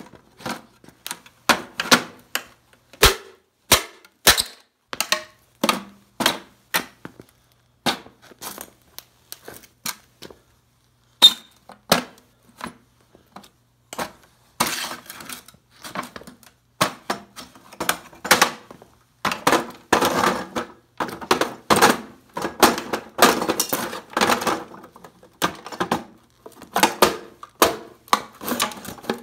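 Heavy leather boots stamping on an old tube radio: repeated sharp thuds and cracks as its wooden cabinet and insides break up. There are stretches of denser crunching about halfway through and again through the last third.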